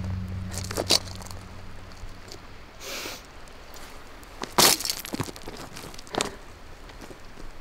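Footsteps crunching on loose stones and rubble: a few scattered crunches and cracks, the loudest about halfway through. A low hum fades away within the first two seconds.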